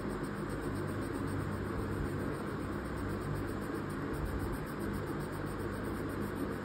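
Staedtler 8B graphite pencil scratching on drawing paper in quick short strokes, a steady dry 'chik chik' scratching.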